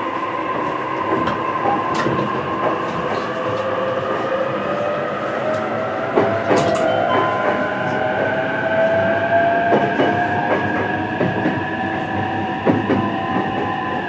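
JR East E233-series electric train running, its VVVF traction inverter giving a whine of several steady tones that drift slowly upward in pitch, over wheel and rail rumble with scattered clicks.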